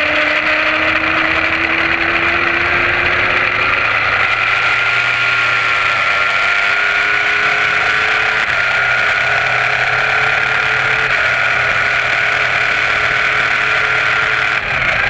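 Track motorcycle's engine at high revs under hard acceleration, its note climbing slowly for several seconds and then holding, over heavy wind rush on the bike-mounted camera's microphone. A short break in the engine note comes near the end.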